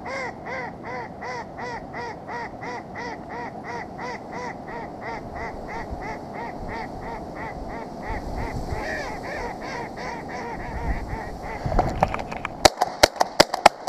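A live decoy duck quacking in a long, even series of about three calls a second. Near the end, a quick run of sharp, loud cracks: shotgun fire at ducks coming in to the decoys.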